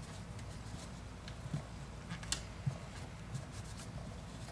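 Cotton cleaning patch rubbing over a Ruger SR9c's polymer pistol frame and rails: faint soft wiping with a few small clicks as the frame is handled, over a low steady hum.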